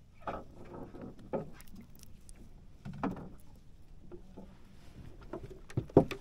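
Irregular knocks and bumps aboard a small fishing boat, with a sharp, louder thump near the end.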